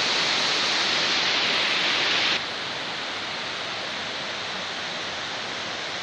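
Steady rush of river water running over rocks and small cascades. It drops suddenly to a lower level about two and a half seconds in.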